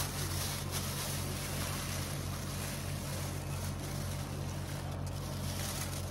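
Steady low hum and hiss of running bakery machinery, with light rustling of a plastic bag being handled.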